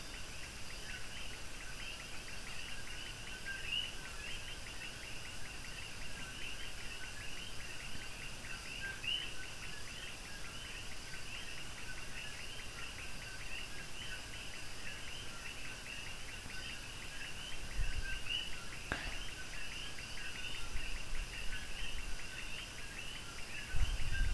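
Steady background chorus of small animals chirping, many rapid high chirps overlapping without pause, with one faint click about three-quarters of the way through.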